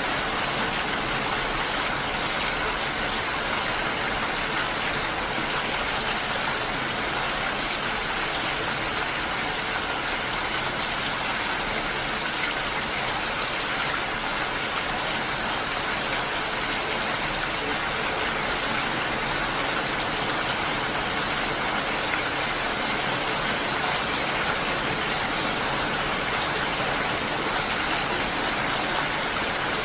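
Steady rain falling, a dense even hiss of drops with no change in intensity.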